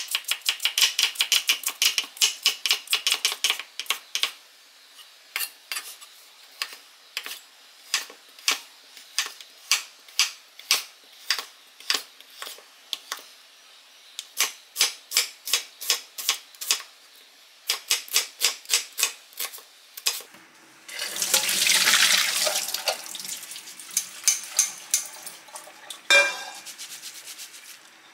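A chef's knife chops carrots and sausage on a wooden cutting board: quick knocks, several a second, in runs with short pauses. About three-quarters of the way through, the chopping gives way to a couple of seconds of water rushing at a steel sink as udon noodles are rinsed in a stainless steel strainer, followed by one sharp metal clank.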